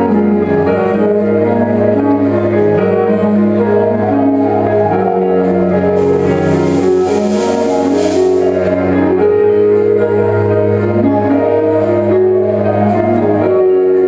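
Recorded song played for a dance number: sustained instrumental chords that change every second or so, with a bright hissing swell lasting about two and a half seconds from about six seconds in.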